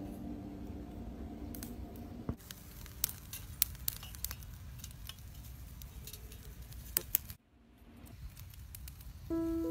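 Background music for the first two seconds, then scattered sharp clicks and clinks as a knife and tongs work fish on a wire grill over a charcoal fire. Music comes back in near the end.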